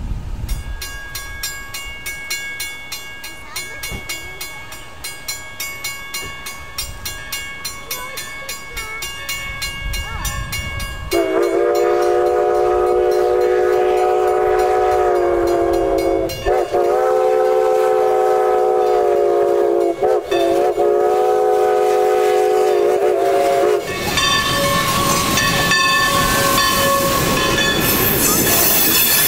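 Grade-crossing bell ringing steadily while the 2-6-0 steam locomotive approaches, its exhaust chuffing faintly. About eleven seconds in the locomotive's steam whistle sounds a chord of several notes in three long blasts for the crossing. Then the engine and its passenger cars pass close by with hissing steam and rumbling wheels.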